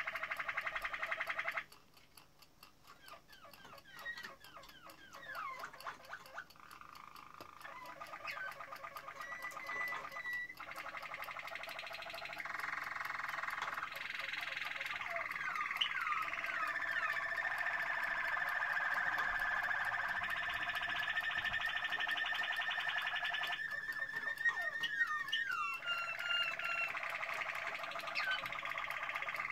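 Caged domestic canaries singing: rolling trills and quick runs of repeated notes, with a long steady trill through the middle. The song drops away about two seconds in and builds back up over the next few seconds.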